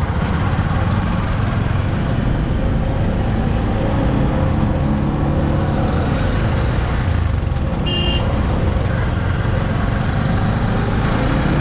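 Motorcycle and three-wheeler engines running in slow traffic, a steady low drone whose pitch rises a little around the middle. About eight seconds in there is one short, high horn toot.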